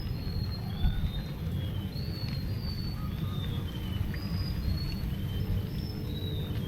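Birds calling in short, high whistled notes, one after another every half second or so, over a steady low rumble.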